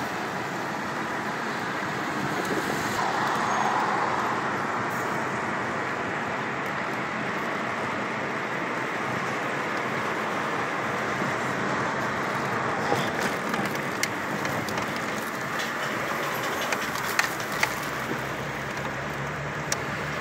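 Steady road and wind noise inside a moving Chevrolet car's cabin, with a few light clicks in the second half.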